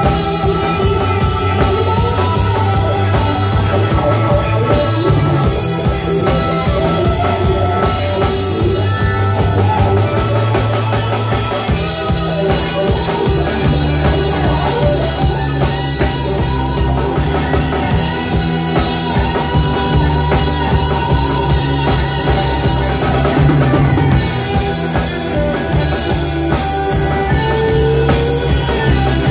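Live rock band playing an instrumental passage without vocals: electric guitars, bass, electric keyboard and a drum kit. The bass line moves to a new note about twelve seconds in.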